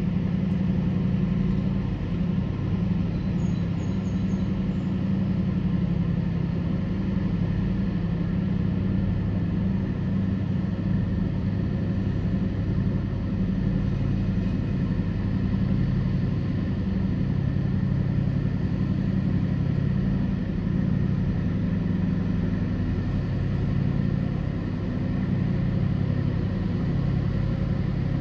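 A towboat's diesel engines droning steadily as it pushes loaded barges, a low rumble with a steady hum.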